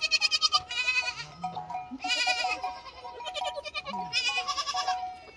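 Young goats (kids) bleating: four short, high-pitched bleats.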